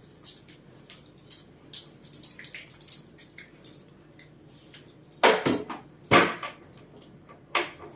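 Light scattered clicks and knocks of small objects being handled, then three louder short rustling or scraping noises near the end.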